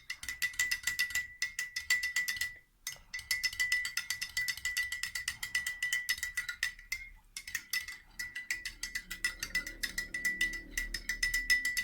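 Spoon stirring hot coffee in a glass, clicking rapidly against the sides with a steady ringing note. It pauses briefly twice.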